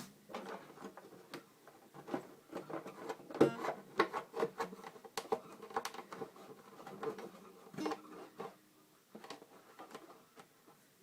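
Handling sounds on an acoustic guitar: a string of irregular light taps, rubs and clicks, with faint short string notes here and there.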